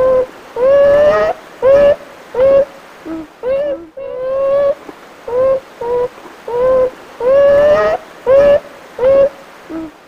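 A run of short, pitched animal calls, one every half second or so, each lasting under a second, some gliding slightly up and a few drawn out longer, with a lower, shorter call at about three seconds and again near the end.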